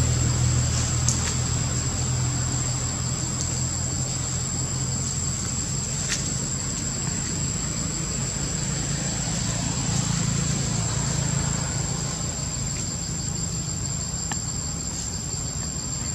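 Insects, likely crickets, with a steady high-pitched drone that does not break, over a low steady hum and a few faint ticks.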